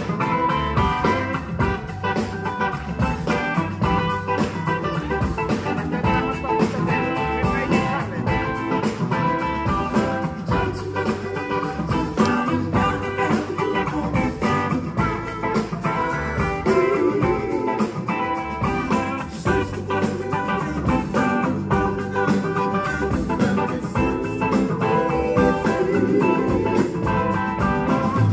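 Live blues-rock band playing: electric guitars over drums keeping a steady beat.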